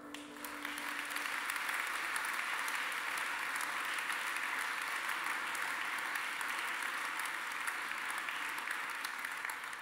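Audience applauding: a seated crowd clapping steadily. It swells up in the first second and dies away near the end, while a held musical chord fades out under its start.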